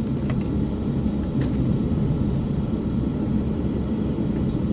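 Motorcycle running steadily on the road, a continuous low engine hum mixed with road and wind noise.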